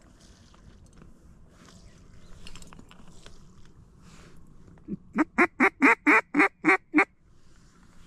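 Duck call blown in a quick, loud run of about nine quacks lasting two seconds, starting about five seconds in.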